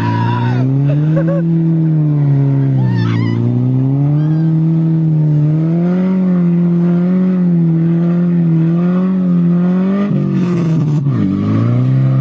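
Car engine revving unevenly in snow, its note rising and falling in slow waves as the throttle is worked, with dips about three seconds in and near the end.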